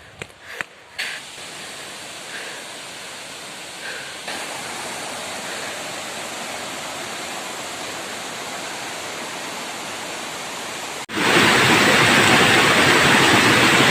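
Waterfall rushing, a steady even roar of falling water that becomes abruptly much louder near the end.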